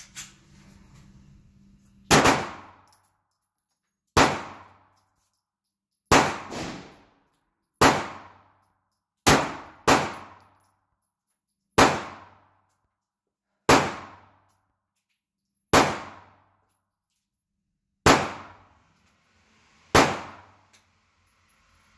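9mm pistol fired about a dozen times at a slow, steady pace, mostly about two seconds apart, with a pair of quick shots near the middle. Each shot rings off the concrete walls of an indoor range.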